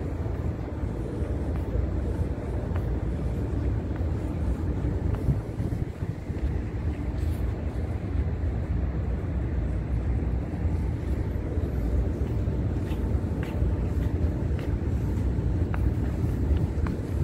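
Steady low rumble of wind noise on the microphone, with a few faint ticks in the last few seconds.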